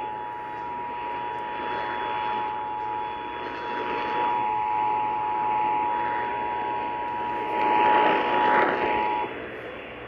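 Emergency Alert System attention signal from WCBS-AM: two steady tones of about 853 and 960 Hz sounding together, played through a Sangean radio's speaker over AM hiss. The tone cuts off about a second before the end.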